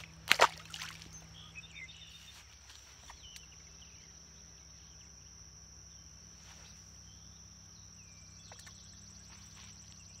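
A small bass splashes into the water as it is released from the hand, about half a second in. After that comes a steady, faint, high-pitched insect buzz, with a few faint chirps.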